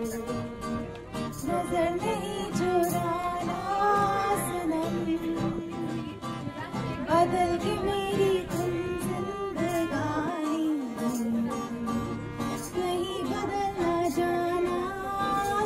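A woman singing into a microphone, accompanied live by a violin and a guitar.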